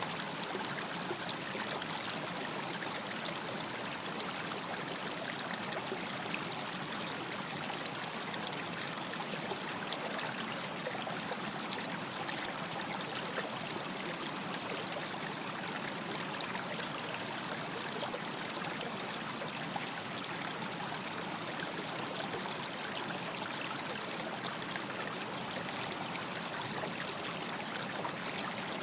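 Stream of running water, a steady, even rush with fine trickling.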